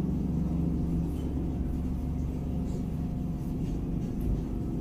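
A steady low rumble with a constant hum.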